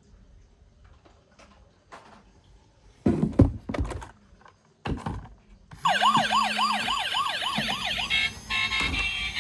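Hard plastic toy vehicles knock and thunk as they are handled, loudest about three seconds in. Then, just before six seconds in, a battery-powered toy emergency vehicle's electronic siren starts a fast wailing yelp of about three to four sweeps a second. Near the end it changes to a steadier electronic tone pattern.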